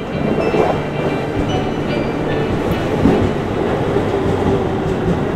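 Electric commuter train moving along a station platform: steady wheel-on-rail rumble and running noise, with faint clickety-clack.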